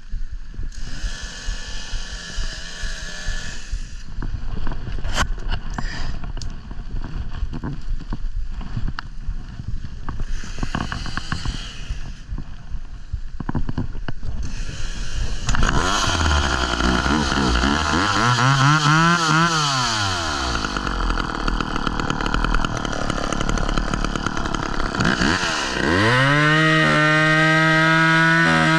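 Chainsaw engine coming in about halfway, low at first, revving up and back down, then opening to a high, steady full-throttle note near the end as it cuts into a fallen tree. Before it, scattered knocks and clatter.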